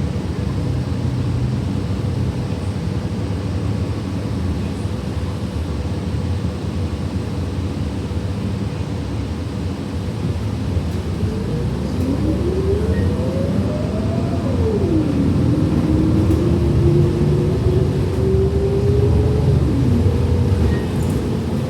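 City transit bus heard from inside, running with a steady engine and road rumble. About halfway through, a whine rises in pitch as the bus picks up speed and drops sharply at a gear change. It then climbs again more slowly and drops once more near the end.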